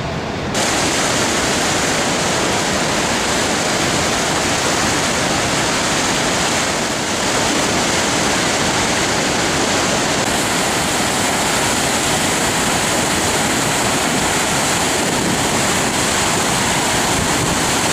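Steady, loud rush of Niagara Falls' falling water, a dense even noise with slight shifts in level and tone about half a second in and again around seven and ten seconds in.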